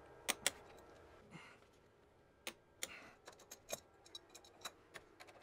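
Ratchet wrench clicking on the camshaft sprocket bolt of a BMW N62 V8 as it is tightened to 80 Nm against a shifting spanner. Two sharp metallic clicks come right at the start, then a run of lighter, uneven clicks, several a second, from about halfway on.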